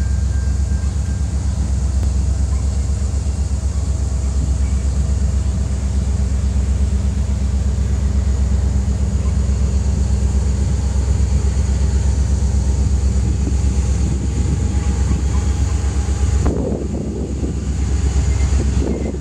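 Diesel freight locomotives approaching, their engines giving a loud, steady low rumble under a constant hiss. Near the end the hiss drops away and the rumble turns rougher.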